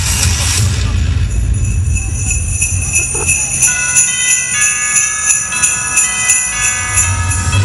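Sleigh bells shaken in a steady rhythm, about three shakes a second, played over the float's sound system. Sustained musical notes join in about halfway through, opening the Christmas-themed show music.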